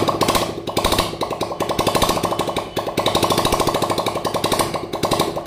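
TVS Victor's 110 cc single-cylinder four-stroke engine running just after starting, with no silencer fitted, so the open exhaust gives a rapid, steady train of pulses. This is its first run after a top-end rebuild (piston, rings, valves).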